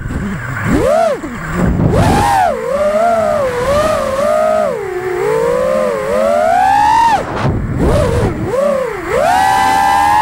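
Motors and props of a 5-inch FPV freestyle quadcopter (T-Motor Pacer V3 2207 1750KV on 6S, Gemfan 5136 props) whining, the pitch swooping up and down with the throttle through flips and dives. It drops sharply about a second in and twice more near the end, where throttle is chopped and punched, then holds a steady high whine.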